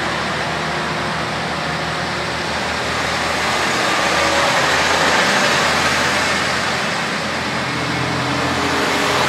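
KiHa 40 series diesel railcar departing, its DMF15HSA-DI diesel engine running under load as the train pulls away, together with wheels rolling on the rails. The sound swells and eases slightly as the cars pass close by.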